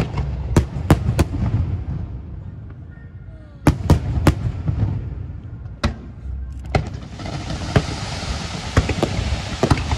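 Aerial fireworks shells bursting, with sharp bangs in quick clusters over a low rolling rumble. About seven seconds in, a steady hiss sets in under further scattered bangs.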